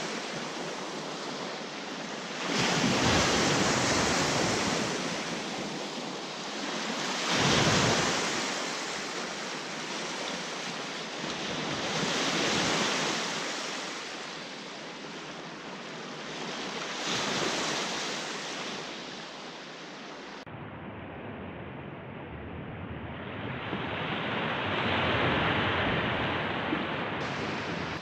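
Small waves breaking and washing up a sandy shore, swelling and fading about every four to five seconds.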